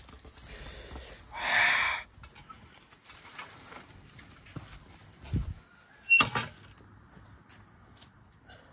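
Garden sounds: a brief, loud rustling burst about a second and a half in, then a few short, high bird chirps and a sharp knock a little after the middle.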